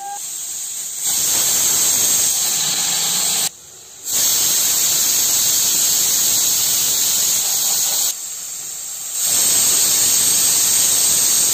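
Pressure cooker whistling: steam jets out loudly through the weight valve as a steady, high hiss, a sign that the cooker is at full pressure. The hiss drops away briefly about three and a half seconds in and eases for about a second around eight seconds, then comes back at full strength.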